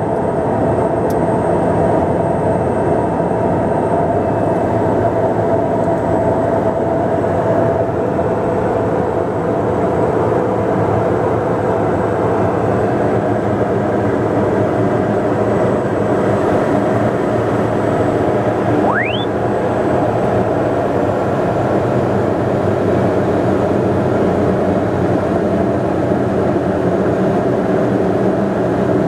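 Single Pratt & Whitney PT6A turboprop engine and propeller of a Pilatus PC-12 droning steadily, heard inside the cockpit on final approach. A short rising tone sounds about two-thirds of the way through.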